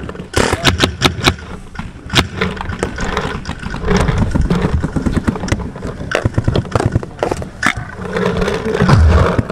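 Empire Axe Pro paintball marker firing a quick string of about five shots about half a second in, then single shots scattered through the rest. Scraping and handling noise runs under the shots, with a low rumble loudest near the end.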